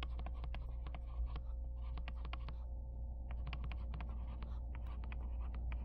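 Stylus tip clicking and tapping on a tablet screen during handwriting: a quick, irregular patter of light clicks with a short pause about three seconds in, over a steady low hum.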